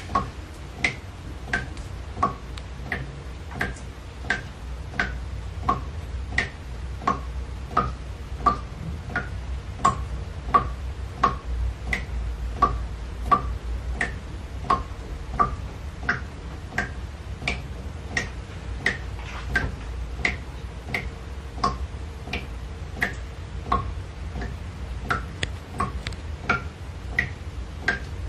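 Water drops falling one by one into water, each a short pitched plink, about one and a half a second at an uneven pace, over a low steady rumble.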